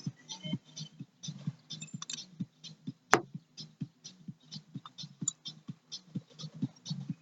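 Irregular clicks and light knocks of metal tools and engine parts being handled during disassembly of a jet ski engine, with one sharp metallic strike about three seconds in.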